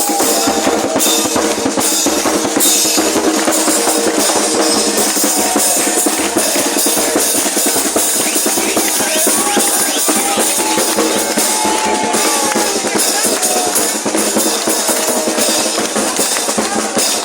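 Murga percussion, bass drum and snare drum, playing a steady, loud rhythmic beat.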